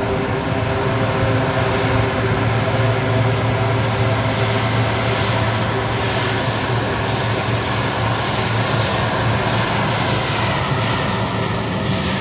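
Airliner engines running loud and steady, with a dense, even hum of many stacked tones and a faint high whine that dips slightly near the end.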